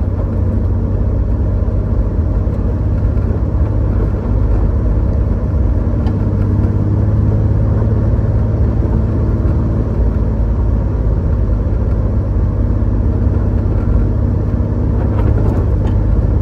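Chevrolet Corvair's rear-mounted air-cooled flat-six engine running steadily under way, with a low rumble of engine and road noise, heard from inside the cabin.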